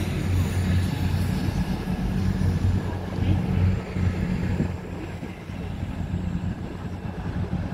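Class 20 diesel locomotive's English Electric eight-cylinder engine running with a steady low drone as the locomotive draws away. It grows quieter after about four and a half seconds.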